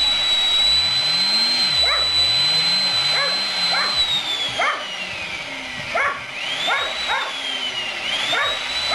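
Chainsaw running at high revs, its whine dropping in pitch about four seconds in and rising again twice near the end. Dogs bark repeatedly through it.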